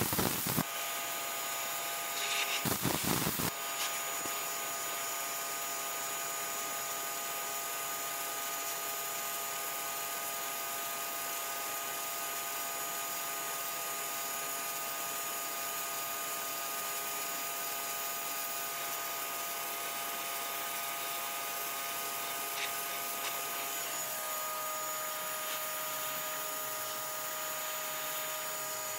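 Simoniz 1800 PSI electric pressure washer running, its motor whining steadily under the hiss of the water jet striking concrete. The noise rushes louder twice in the first few seconds, and the motor's tone shifts near the end.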